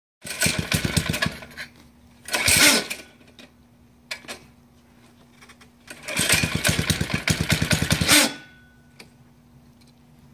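Small single-cylinder engine on a Baja minibike being started: it catches and runs roughly for about a second, sputters again briefly, then catches for about two seconds before dying each time. It won't keep running; the owners say the motor is rusted.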